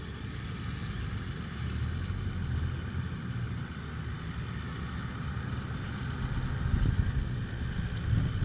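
Four-wheel drive's engine running as it drives down a soft sand track toward the camera, a low rumble growing louder as it approaches.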